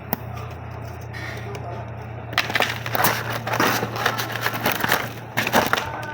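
Parcel packaging being handled and unwrapped, with crinkling and rustling that grows louder and busier from about two seconds in.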